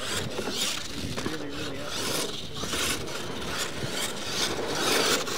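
Radio-controlled monster truck driving on loose dirt, its tyres churning and spraying dirt in repeated surges as the throttle is worked.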